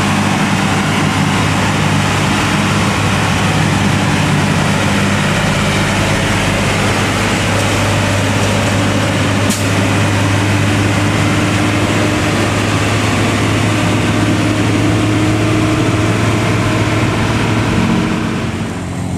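Diesel engine of a heavily loaded Hino tandem-axle cargo truck pulling steadily up a hill as it drives past. The drone fades near the end as the truck moves away.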